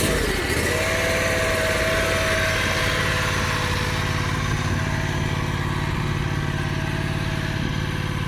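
Mini skid steer's Zongshen 680 gasoline engine running steadily, freshly started on choke. A steady whine joins the engine about a second in.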